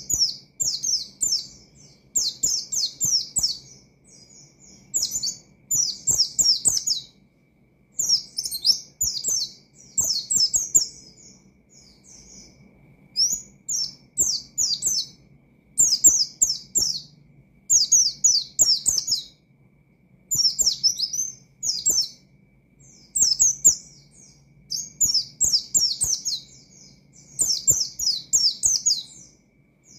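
White-eye (pleci) singing vigorously in repeated bursts of quick, high, down-slurred notes. Each phrase lasts about a second, with a short pause before the next.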